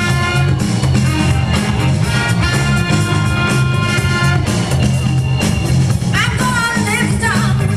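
DJ's breakbeat music played loud over a PA, with a repeating bassline and held instrumental tones, a gliding vocal or horn line entering about six seconds in.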